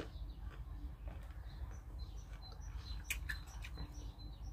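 Faint small birds chirping, with quiet eating sounds at the table and a few light clicks about three seconds in.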